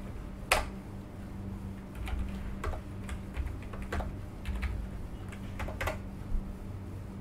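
Typing on a computer keyboard: scattered, irregular keystrokes with short pauses between them, over a faint steady low hum.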